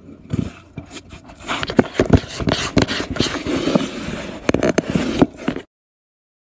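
Cardboard scraping and crackling, with many irregular clicks and rustles, as a cat works its head through a torn hole in a box. The sound cuts off suddenly near the end.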